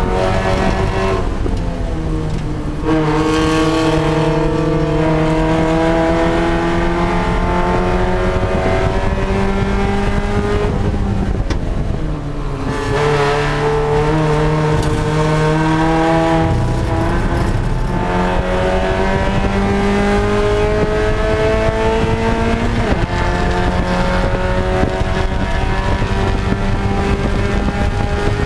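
Spec Miata's four-cylinder engine heard from inside the cabin at race pace. It climbs in pitch under full throttle, drops sharply on two upshifts in the second half, and twice falls away in pitch and level before pulling hard again.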